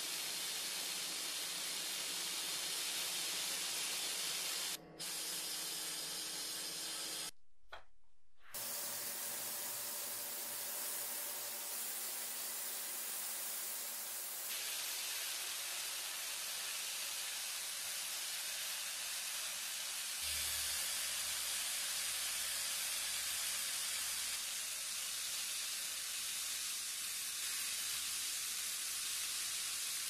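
Sandblaster nozzle blasting abrasive at small brass lighter parts to strip years of dirt: a steady hiss that drops out briefly about five seconds in and stops for about a second shortly after.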